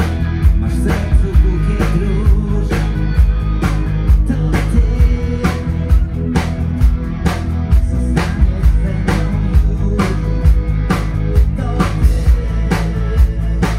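Live rock band playing: two electric guitars together over bass and a steady drum beat.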